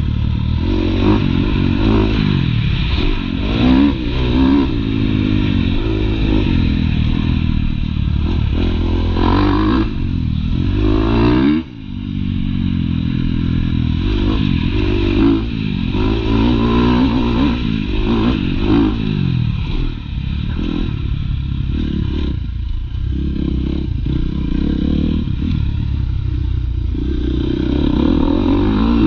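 Husqvarna dirt bike engine ridden hard, revving up and down repeatedly as the throttle opens and closes through the gears. The throttle cuts off sharply once, a little before halfway, then picks up again.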